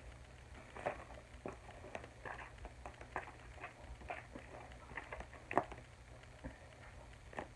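Spoon stirring glue and slime activator in a container: irregular light clicks, taps and soft squishes, a sharper tap about a second in and another late on.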